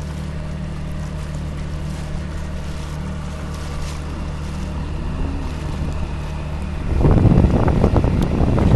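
A small boat's engine running with a steady low drone. About seven seconds in, a loud, rough rush of wind buffeting the microphone comes in over it.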